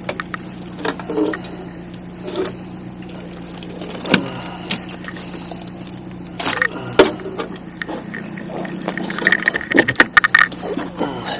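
Small boat's outboard motor idling with a steady hum, with scattered knocks and clatter on board that come thickest near the end.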